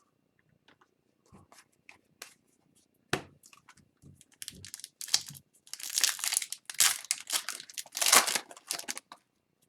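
A foil trading-card pack wrapper being torn open and crinkled. A few light ticks and rustles come first, then dense crackling crinkles from about halfway, loudest near the end.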